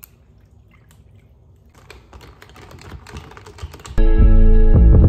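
Faint clicking and crackling, growing a little louder, while milk is poured into a plastic cup of coffee. About four seconds in, loud guitar music with a heavy bass cuts in and takes over.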